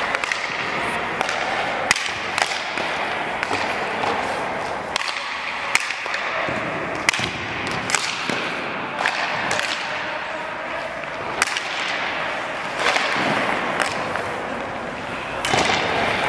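Ice hockey shots in a goalie drill: sharp cracks of a stick striking pucks and pucks hitting the goalie's pads, about one every second or two, over steady rink noise.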